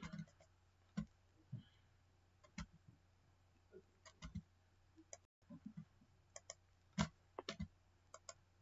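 Scattered faint clicks and taps of a computer mouse and keyboard at irregular intervals, the loudest about seven seconds in, over a low steady electrical hum.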